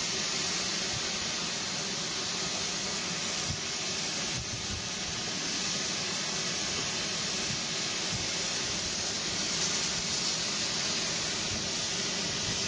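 GWR Hall class steam locomotive standing with its safety valves blowing off steam: a steady, unbroken hiss.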